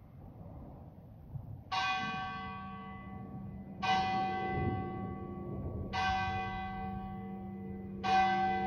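A bell-like tone struck four times, about two seconds apart, each strike ringing out and fading, with a low steady hum underneath from the second strike on.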